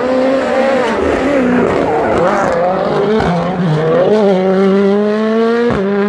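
2017 Ford Fiesta WRC's turbocharged 1.6-litre four-cylinder engine at full rally pace through a sequence of bends, its note rising and falling with throttle, then climbing steadily under acceleration before a sharp crack and drop in pitch at a gear change near the end.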